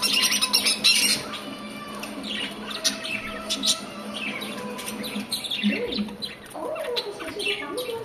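Budgerigars chirping and chattering: many quick, overlapping high calls from several birds, busiest in the first second or so.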